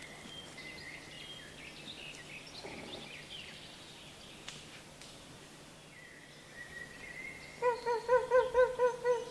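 Faint background noise with scattered bird chirps, then near the end a wolf starts to howl, its pitch wavering rapidly about five times a second. The howl is the loudest sound.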